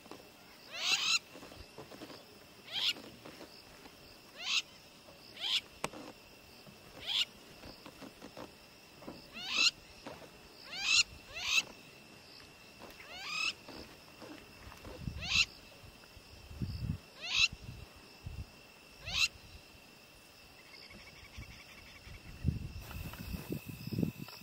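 Night bush ambience: a short, steeply rising whistle-like call from a night-calling animal, repeated every one to two seconds, over a steady high insect trill. A few low rhythmic sounds come in near the end.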